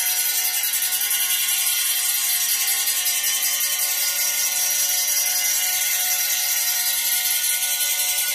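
Electroacoustic music texture: a loud, steady, fast high rattle over several sustained held tones, with no beat or melody.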